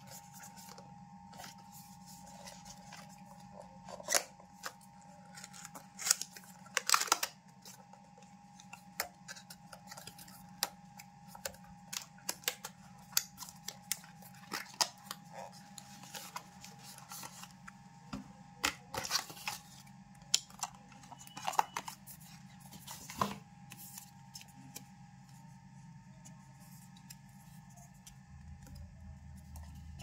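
Handling noise of a cardboard box and paper packaging being opened and a coiled microphone cable being pulled from its tray: scattered rustles, taps and clicks, with several louder snaps and scrapes, over a steady faint hum.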